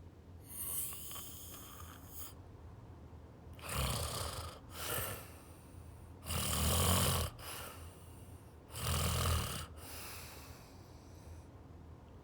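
A person snoring in sleep: three deep snores about two and a half seconds apart, the middle one loudest, with fainter hissing breaths between them.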